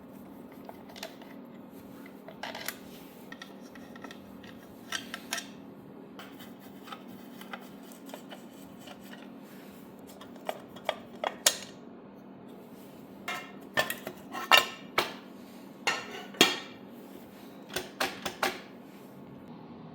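Scattered metallic clinks and taps of hand tools and small screws as the side cover is taken off a Honda Z50 engine. The clinks come more often in the second half, over a steady low hum.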